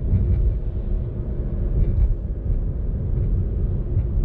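Steady low rumble of a car being driven, heard from inside the cabin: engine and road noise.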